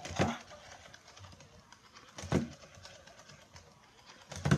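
Gemmy Pouncing Puppy animated plush toy dog's mechanism thudding on a wooden tabletop: three dull thumps about two seconds apart over a faint background, as the toy pounces.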